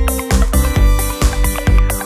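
Electronic dance music with a steady kick-drum beat, about two beats a second, under sustained synthesizer tones.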